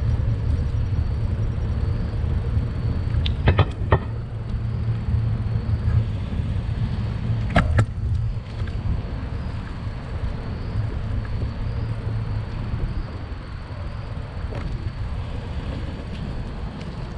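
Steady low rumble of riding along a road on a bicycle, with traffic noise, broken by a few sharp knocks in two clusters in the first half.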